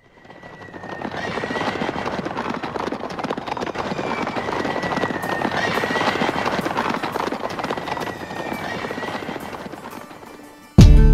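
Recorded sound effect of horses galloping and neighing, fading in from silence and easing off again, with a thin high tone wavering above it. Shortly before the end, loud guitar-led band music comes in suddenly.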